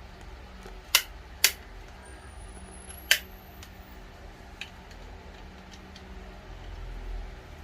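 Sharp plastic clicks from a touch smart light switch's housing being handled and opened: three loud snaps in the first three seconds, then a few lighter ticks.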